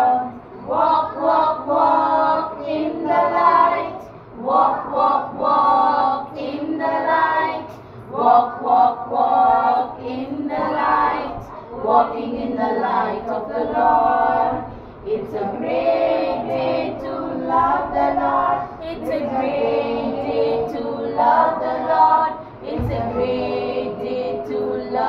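A group of children singing a song together in chorus, phrase after phrase with short breaths between.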